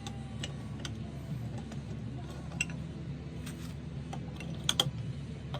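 Scattered light clicks and taps from hand plane parts being handled, with a sharper double click near the end, over a steady low hum.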